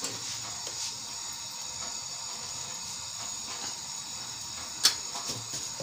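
Gas stove burner hissing steadily under a wet aluminium pot that is being left on the flame to dry. One sharp click comes about five seconds in.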